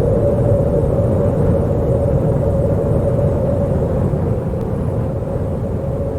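Howling wind: a steady low rushing noise with a hollow howl held at one pitch, easing slightly in loudness about two-thirds of the way through.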